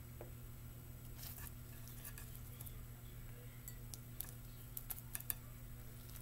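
Hands pressing and patting a nori-wrapped sushi roll on a plate to seal the dampened seam: faint scattered ticks and taps, a few sharper ones about five seconds in, over a steady low hum.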